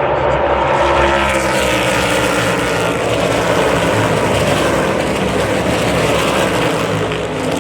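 NASCAR Cup cars' V8 engines running at speed on track: a continuous loud engine drone from several cars, with pitch shifts as they go through the gears. It gets fuller and brighter about a second in as the cars come closer.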